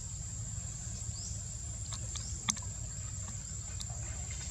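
Insects droning with a steady high-pitched buzz over a low rumble, with short rising chirps every second or so in the first half and a single sharp click about halfway through.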